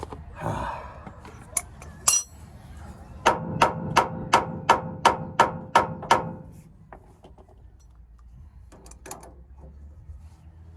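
Hammer striking steel about ten times in quick succession, roughly three blows a second, each with a short metallic ring. Two single metal knocks come before the run.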